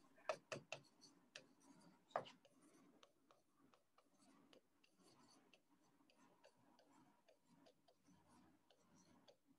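Pen tapping and clicking on an interactive display board during handwriting: light, irregular taps, a little louder in the first couple of seconds, then faint ticks over near silence.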